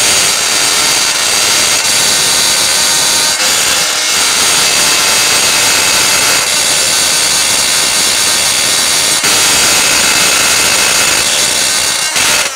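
Oscillating multi-tool with a custom wrench attachment running steadily, vibrating a rusted, seized nut on a turbocharger wastegate stud so that penetrating oil works into the threads. The loud buzz cuts off just before the end.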